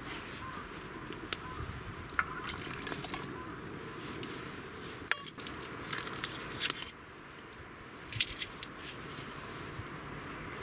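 Clinks and light knocks of a stainless steel bowl and cooking pot as cut vegetables (onion, carrot, potato) are tipped into a pot hanging over a campfire, with scattered sharp clicks.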